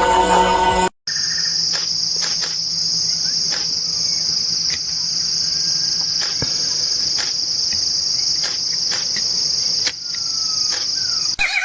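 A cricket trilling in one steady, unbroken high note, with faint scattered clicks behind it. In the first second, a frog chorus plays and cuts off abruptly.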